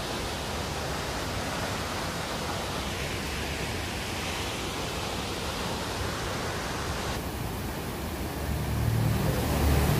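Kegon Falls rushing, a steady, even wash of falling-water noise. About seven seconds in the sound changes, and near the end a low steady hum comes in and grows louder.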